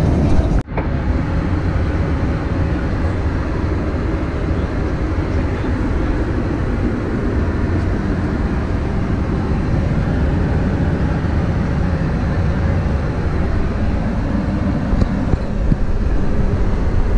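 Steady cabin noise of a Boeing 737-800 with CFM56 engines: a constant low rush of engines and airflow. It drops out for an instant under a second in.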